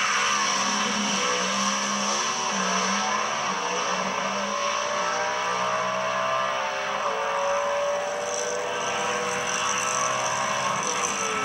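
Drag race cars at full throttle launching and running down the strip. The engine note climbs in pitch, drops back with each shift, and fades as the cars pull away.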